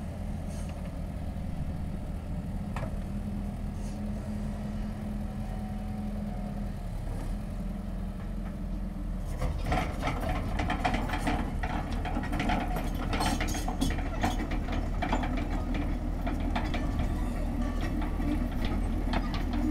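Hydraulic excavator's diesel engine running steadily. About halfway through it picks up and a rapid, irregular metallic clattering joins it.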